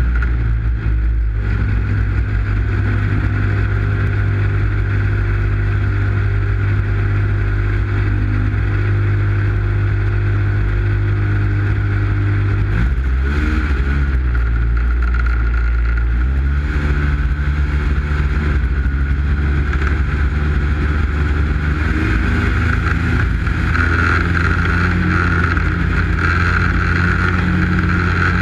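Arctic Cat snowmobile engine running steadily while the sled crosses open snow. About halfway through the engine note drops and wavers, then climbs back as the throttle is opened again.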